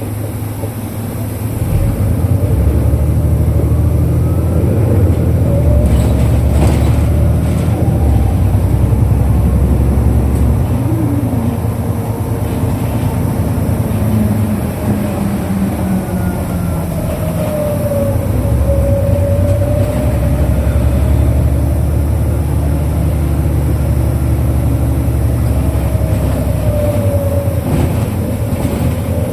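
Interior running sound of a 2005 Isuzu Erga KL-LV834L1 city bus: the engine running steadily, getting louder about two seconds in, with a whine that rises and falls in pitch as the bus moves.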